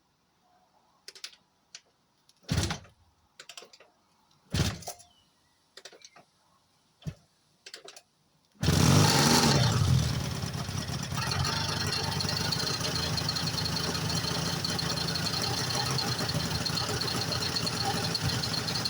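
Rebuilt Yamaha two-stroke motorcycle engine starting for the first time: a few knocks and clicks, then it catches suddenly, runs loud for a second or so and settles into a steady idle. The engine has what the owner calls a noisy top end.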